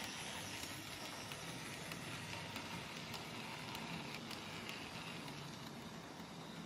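OO gauge model train, a small tank locomotive hauling four-wheeled coaches, running on the track: a steady running noise with light, irregular clicks.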